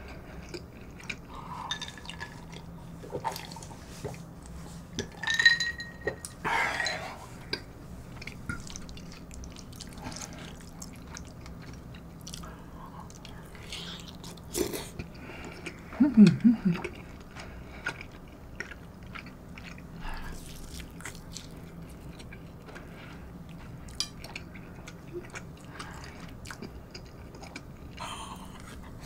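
Close-up eating sounds: small clicks of a spoon and chopsticks on the bowl, sips of the stew broth and wet chewing of soft kimchi pork-cutlet stew with rice. A short hum of a voice about sixteen seconds in.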